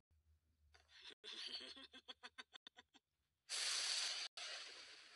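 A cartoon girl's sly, breathy snickering laugh in quick pulses that come faster and faster, then a sudden hissing whoosh that slowly fades away.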